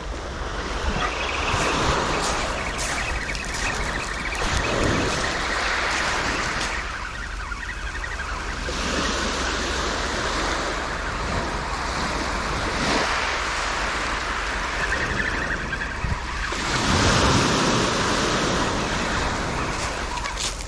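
Small sea waves breaking and washing up a shingle beach. The surge swells and eases every few seconds.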